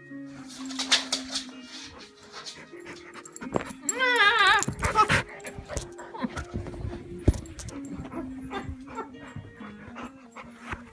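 Long-haired dog playing rough right against the phone, with scuffling knocks and one loud, high, wavering dog call about four seconds in, over music playing underneath.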